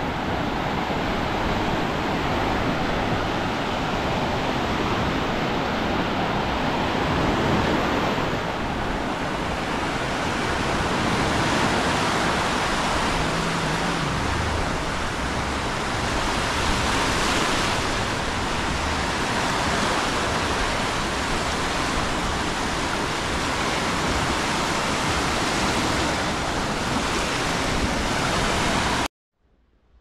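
Small sea waves breaking and washing up over a sandy shore: a steady rush of surf that swells and eases a few times, cutting off suddenly near the end.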